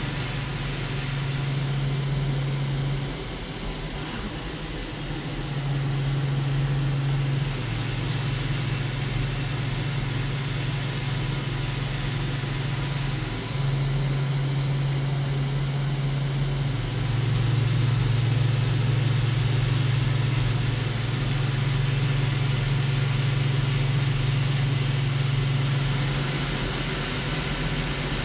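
A CNC milling machine cutting Monel K500 with a 1/2-inch Harvi III end mill at 1375 rpm under flood coolant. Coolant spray makes a steady hiss, and a low cutting hum steps up and down in pitch several times. The machinist judges the cut to be sounding perfect.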